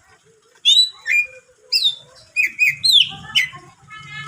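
Cucak ijo (green leafbird) singing: a run of loud, sharp whistled notes, each sweeping down in pitch, then a fast twittering chatter near the end.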